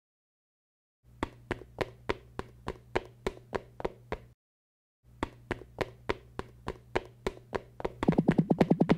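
Rapid gunfire sound effects: a run of sharp shots at about five a second, a short silent gap, another run, then a louder, faster burst of fire near the end.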